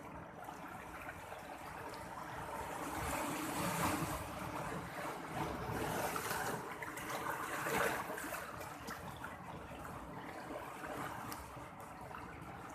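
Sea waves washing in, a steady rush of water that swells twice, about four seconds in and again near eight seconds, then eases off.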